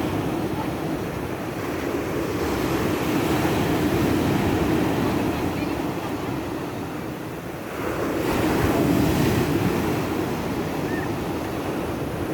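Rough sea surf breaking on a beach, a steady rush of waves that swells about two seconds in and again, more sharply, about eight seconds in.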